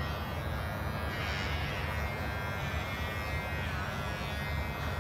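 Cordless electric pet hair clipper buzzing steadily as it is run through a long-haired cat's fur.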